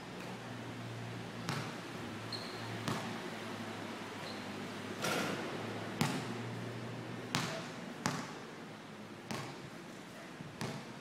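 A basketball bouncing on a concrete court: about eight sharp thuds at uneven intervals, over a low steady hum.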